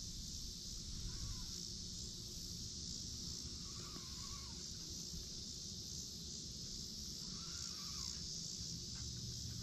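Steady insect chorus in the trees around a pond, with a bird giving three short arching calls a few seconds apart.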